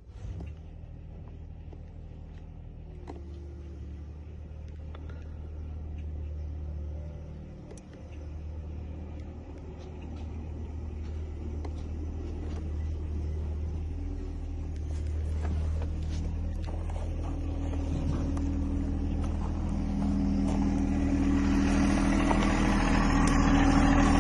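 Motor vehicle engine running steadily with a low hum, growing louder toward the end.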